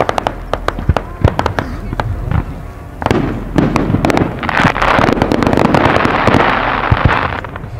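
Fireworks display shells of up to 3-inch calibre bursting in quick succession: a rapid run of sharp bangs, then from about three seconds in a denser, steadier rush of noise with more reports inside it.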